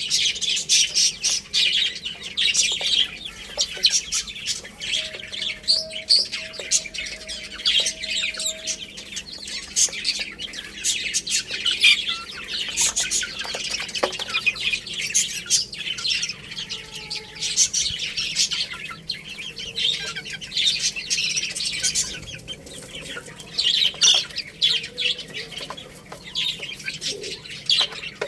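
A group of baby chicks peeping without pause, many high-pitched chirps overlapping, with scattered sharp clicks.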